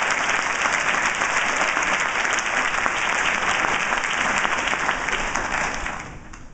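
Audience applauding: dense clapping from a large crowd that dies away near the end.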